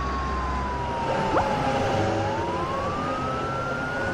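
Police car siren wailing: one slow wail that glides down in pitch over about two seconds, then climbs back up.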